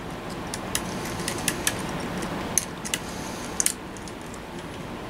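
Light, irregular clicks and ticks from new capacitor leads and wiring being handled and fitted inside a tube tester's chassis, over a steady low hum.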